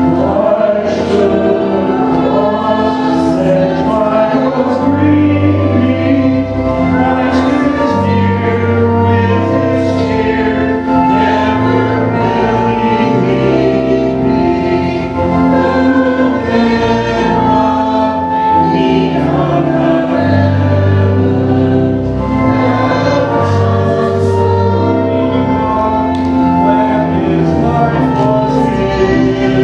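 A hymn sung by many voices with instrumental accompaniment, the held notes moving steadily from one to the next.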